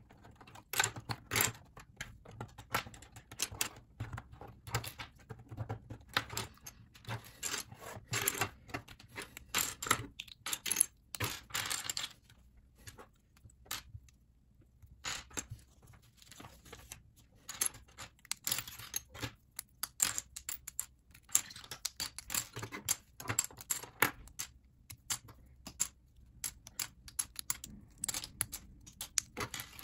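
Plastic LEGO bricks and plates being pried apart by hand and set down among loose pieces: a run of sharp clicks and clatters, with a pause of a couple of seconds near the middle.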